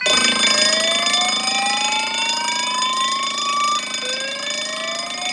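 A conventional fire alarm panel's alarm going off, starting suddenly and loud: a slow rising whoop tone that sweeps up over about three and a half seconds and then starts again, over the steady ringing of an electric fire bell.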